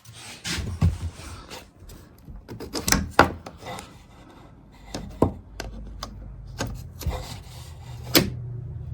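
3D-printed plastic dust shoe being handled and worked onto its mount, with rubbing and scraping broken by several sharp clicks and knocks. The loudest knocks come about three seconds in and near the end.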